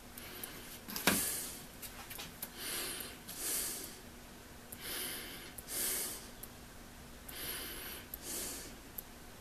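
A person breathing through the nose close to the microphone, in and out about every two and a half seconds. A single sharp click about a second in is the loudest sound, and a faint steady hum lies underneath.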